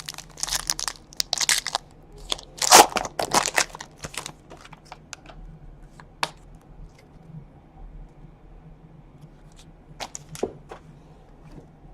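Packaging being torn open and crinkled as a box of trading cards is unwrapped, followed by scattered light clicks and rustles of the cards being handled. The tearing is densest over the first four seconds or so.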